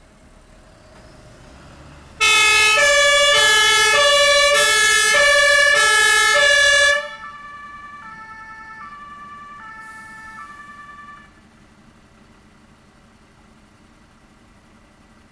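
Fire engine's German two-tone siren (Martinshorn) sounding loudly about two seconds in, switching between a high and a low tone roughly every two-thirds of a second, then cutting off suddenly; a fainter two-tone siren carries on for a few more seconds.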